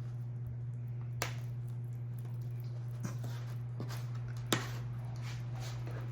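A knife knocking on a cutting board several times at irregular intervals while raw chicken is cut, over a steady low hum.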